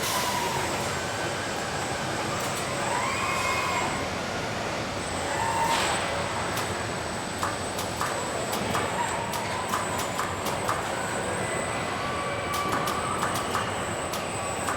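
Car-body welding shop machinery running steadily with a thin high whine. Short hisses come near the start and about six seconds in, and whining tones glide up and down. A run of sharp clicks starts about halfway through.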